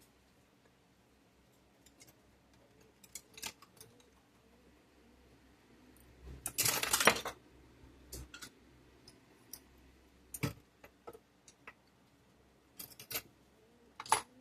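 Small parts of a model locomotive and its motor being handled on a workbench: scattered light clicks and taps, with a brief clattering rattle about six and a half seconds in that is the loudest sound.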